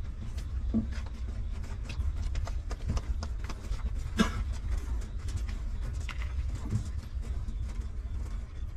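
Litter of newborn puppies suckling at their mother: a steady run of small wet clicking and smacking sounds, with a few short whimpers, the loudest about four seconds in, over a low rumble.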